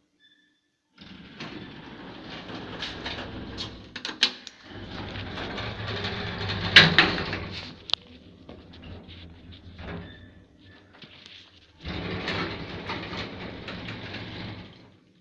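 Passenger lift running in its shaft: a steady low hum with rattling and several sharp clicks, starting about a second in, easing off for a few seconds past the middle and coming back near the end.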